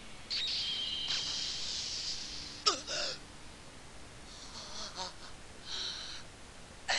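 Anime sound effects: a hissing rush with a thin high tone for about two seconds, then a short sharp gasp, followed by faint rustling and a light knock as a sleeper tumbles out of bed with the sheet.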